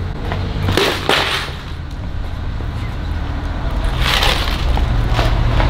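Steady low outdoor rumble with a few short brushing, rattling noises, about a second in, around four seconds in and near the end.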